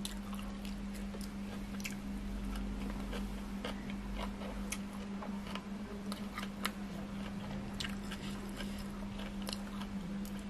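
Close-miked chewing of spicy long-bean salad with pickled field crab: wet mouth sounds broken by many small sharp crunches. A steady low hum runs underneath.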